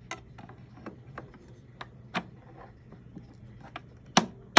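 Irregular sharp plastic clicks and knocks from hands handling vacuum cleaner parts, with two louder knocks near the end, over a faint steady low hum.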